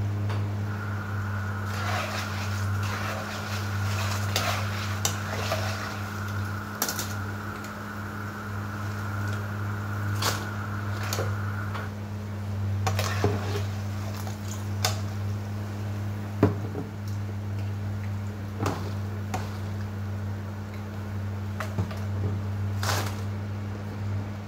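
A metal skimmer clinks now and then against the frying pan and the wire basket as fried potato chips are lifted out, over a steady low hum. A faint high whine runs through the first half and stops about halfway.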